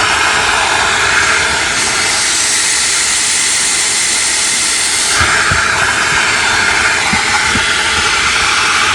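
Henry vacuum cleaner running with a steady, loud suction rush. The tone of the airflow shifts about two seconds in and again about five seconds in.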